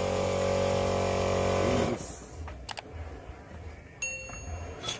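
A steady machine hum cuts off suddenly about two seconds in. Near the end come a click and a bell-like chime: the sound effect of an on-screen subscribe button being pressed.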